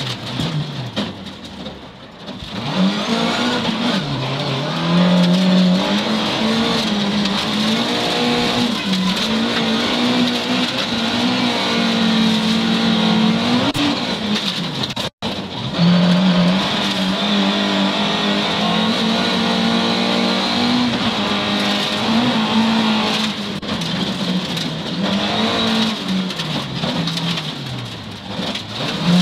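The 300-horsepower engine of a Volvo 940 rally car, heard from inside the cabin, revving hard and changing gear at racing speed on gravel roads. Its pitch climbs through each gear and drops at every shift, with a lift off the throttle about two seconds in. The sound cuts out for an instant about halfway through.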